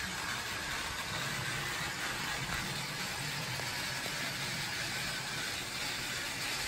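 Battery-powered TrackMaster toy train engine running steadily on its track, a small electric motor's even whir.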